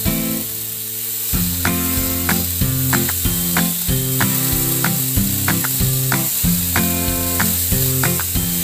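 Background music: a melody of held, evenly pitched notes over a bass line, with a brief lull about half a second in before the notes resume. A steady hiss runs under it.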